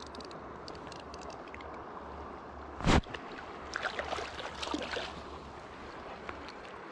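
Steady rush of river current around a landing net held in the water, with one loud knock about three seconds in. Small splashes and clicks follow as a netted brown trout is handled in the net.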